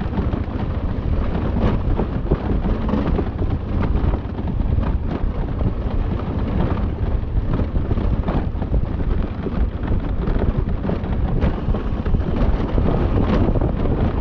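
Wind buffeting the microphone: a steady, heavy rushing noise with a deep rumble, with no clear engine note or speech over it.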